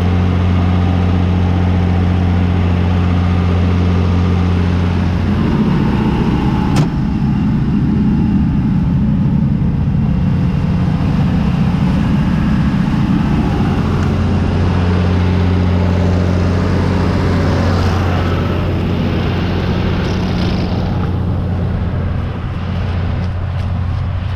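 John Deere 3350 tractor's diesel engine running steadily as the tractor drives, its even note turning rougher for several seconds partway through. A single sharp crack sounds about seven seconds in.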